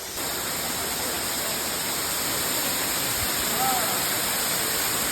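Steady, even rush of a waterfall: falling water with no break, coming in abruptly right at the start. A faint short voice is heard about three and a half seconds in.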